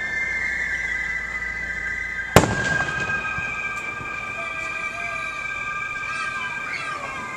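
Fireworks going off: one sharp bang about two and a half seconds in, over several high, steady whistling tones, with a few whistles falling in pitch near the end.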